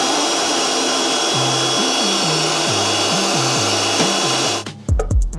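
Food processor motor running, blending crushed tomatoes, garlic and dried herbs into a pizza sauce: a steady whirring with a high whine. It cuts off sharply about four and a half seconds in, and background music with a drum beat carries on.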